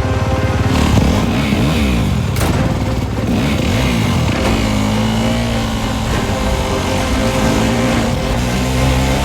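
A motorcycle engine revving, its pitch swinging up and down over the first few seconds and then holding a steadier note, with a sharp crack about two and a half seconds in, over film score music.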